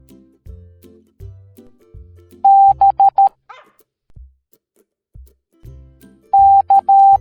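Morse code tone beeps, a single steady pitch keyed on and off. About two and a half seconds in it sends dash-dot-dot-dot, the letter B, and near the end dash-dot-dash-dot, the letter C. Background music with a repeating low bass line plays underneath.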